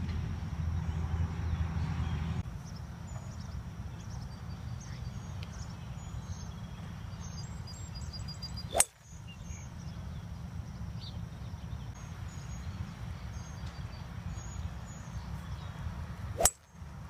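A golf club striking the ball twice, a sharp crack each time, about nine seconds in and again near the end, over steady low background noise.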